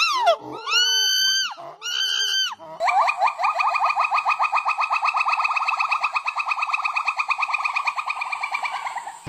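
Monkey calls: a few short pitched calls that rise and fall in pitch, then, about three seconds in, a long rapid trill of about ten notes a second held at a steady pitch for some six seconds.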